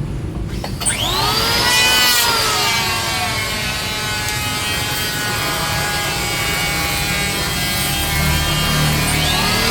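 Electric woodworking power tool spinning up about a second in, its motor whine sinking in pitch as it cuts into the wood and then running steadily through the cut; it spins up again near the end.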